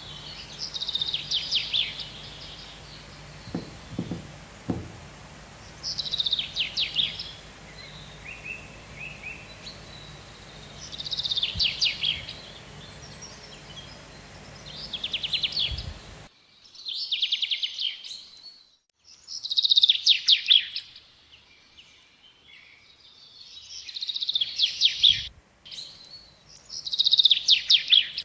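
Small bird singing short, rapid trilled phrases about a second long, repeated every few seconds. The phrases run over a low steady hum that cuts off about halfway through, after which the trills are louder.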